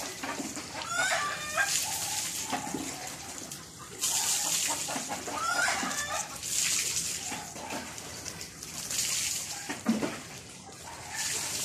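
Pigeons bathing in shallow water trays, splashing in short repeated bursts as they flap and dip in the water. A bird calls twice in the background, about a second in and again near the middle.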